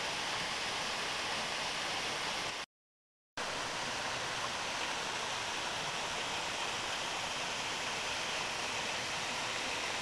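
Steady rushing of a waterfall spilling over rock ledges into a pool. About three seconds in, the sound cuts out completely for half a second and then resumes unchanged.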